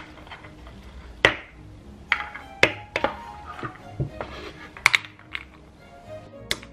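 A series of sharp, separate clicks and knocks, about eight, as whole walnuts in the shell are handled, knocking against each other and against a wooden bowl and a granite mortar. Light background music plays underneath.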